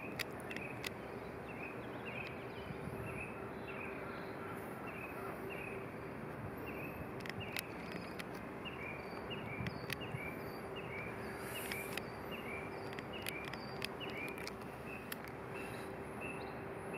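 Outdoor background noise with a faint steady hum and a short high chirp repeating about twice a second, which pauses briefly about two-thirds of the way through; a few faint clicks.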